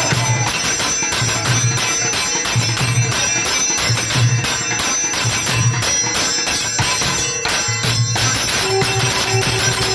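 Hindu temple worship music: fast, continuous clanging of bells and cymbals over a steady low drumbeat.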